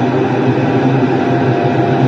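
Class 175 diesel multiple unit running steadily, a constant engine drone with several steady tones over a rushing noise.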